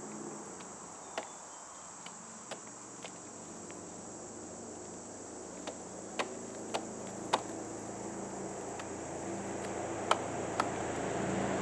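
Steady high-pitched drone of crickets and other insects, with about nine scattered sharp wooden clicks and knocks as a homemade stick-frame bucksaw is handled and adjusted. A low rumble builds near the end.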